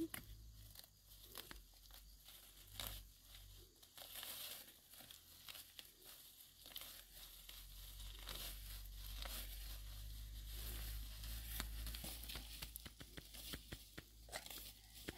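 Leafy undergrowth rustling and tearing as plants are pulled and cut with a machete, with scattered short snaps and crackles.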